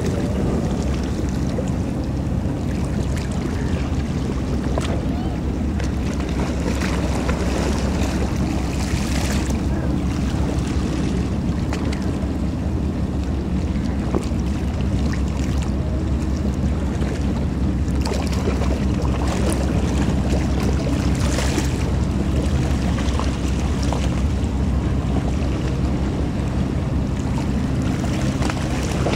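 Passenger ferry engines running with a steady low drone, mixed with water splashing and washing along the hull and wind on the microphone.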